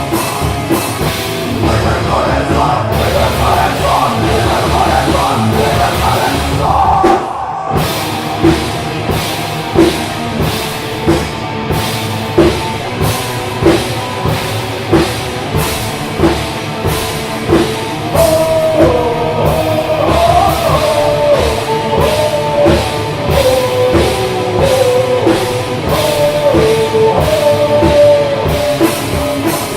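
Rock band playing heavy rock live, loud, with a steady beat on the drum kit. The music drops out briefly about seven seconds in, and a wavering melody line comes in from about eighteen seconds.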